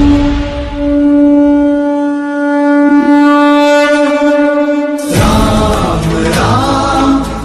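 Devotional music: one long, steady blown horn note, held for about five seconds, then cut off as the music with chanting voices comes back in.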